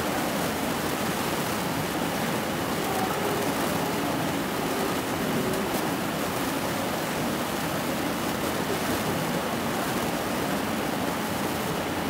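Steady, even hiss of background noise, with faint voices underneath.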